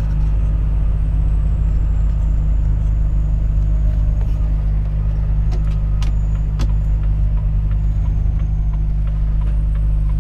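Volvo FH 460 truck's 13-litre six-cylinder diesel running steadily under way, a constant low drone of engine and road noise, with a few light clicks and knocks.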